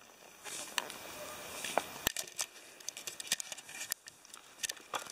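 Bicycle tyres rolling over a tarmac path strewn with grit and leaves: a steady rustling hiss that picks up about half a second in, with many scattered sharp clicks and crackles.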